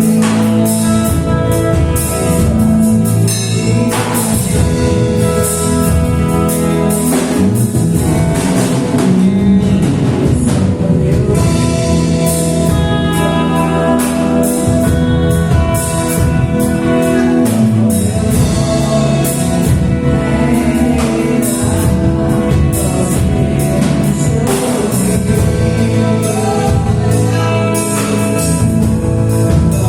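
Live gospel worship music: singers over a band with drum kit and sustained keyboard or guitar chords, at a steady beat.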